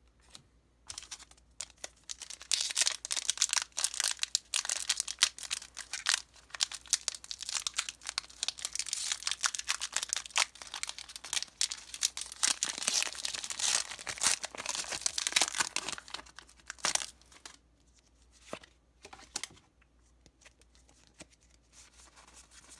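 Crinkly plastic and foil trading-card packaging being handled and torn open: dense crackling and tearing for about fifteen seconds, thinning to a few scattered crinkles near the end.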